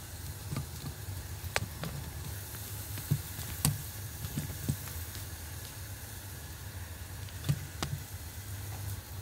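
Large pot of oxtail broth coming to the boil on a gas stove: a steady low rumble with a faint hiss, broken by a few sharp clicks and knocks of kitchen things being handled.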